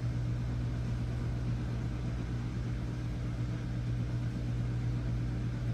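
Steady low background hum with a faint, even hiss, unchanging throughout: room tone from a running appliance or air handling.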